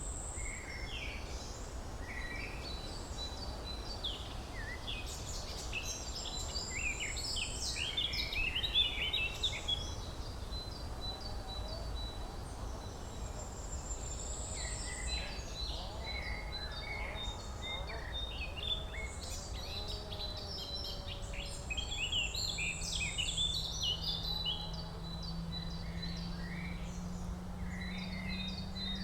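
Several songbirds singing and chirping in a forest, quick overlapping phrases throughout, over a low steady rumble. A high thin trill comes and goes every several seconds, and a low steady hum comes in near the end.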